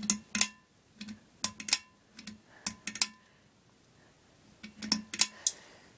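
Sharp metallic clicks and rattles in irregular clusters, about a dozen over the stretch with a quiet gap in the middle, some leaving a brief ringing tone, over a faint low hum.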